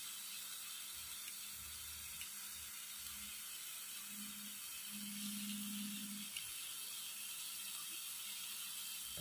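Mushrooms sizzling faintly on a hot nonstick grill pan: a soft, steady hiss.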